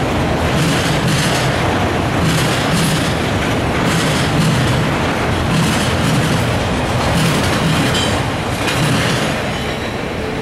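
Autorack freight cars rolling past on the rails: a steady, loud rumble of steel wheels with a noisy pulse about once a second as the cars' wheel trucks go by. The sound eases off near the end as the train moves away.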